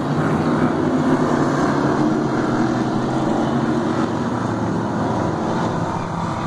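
Engines of several oval-track race cars running together on the circuit, a steady mixed engine noise that eases slightly about two-thirds of the way through.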